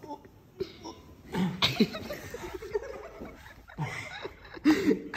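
People laughing and chuckling in several short bursts.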